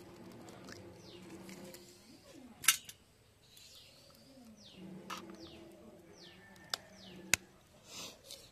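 Doves cooing and small birds chirping with quick falling calls. A few sharp clicks of eggshell being cracked and opened over a steel bowl cut through, the loudest a little under three seconds in and two more about seven seconds in.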